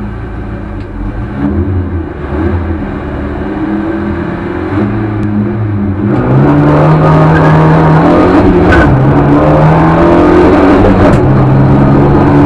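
Lada 2101 rally car's engine heard from inside the cabin, revving while held on the line, then about six seconds in launching hard and getting much louder, its pitch climbing and dropping back with each gear change as it accelerates.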